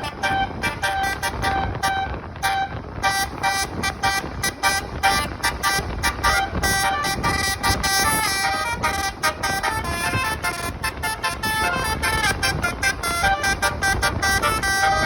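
A bus's basuri horn playing a melody: a long run of short, quick horn notes stepping up and down in pitch.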